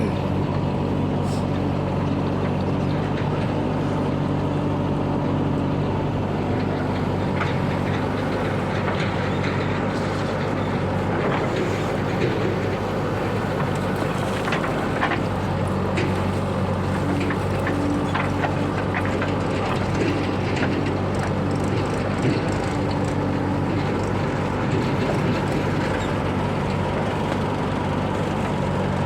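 Heavy diesel engine running steadily at an even speed, with a few light knocks.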